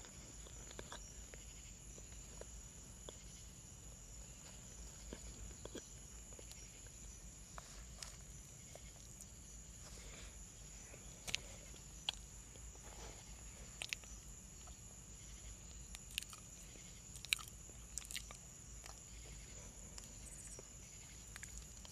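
Faint chewing of Ginger Evans cornstarch chunks: soft mouth crackles and clicks, scattered and irregular, with a few sharper crackles in the second half over a steady background hum.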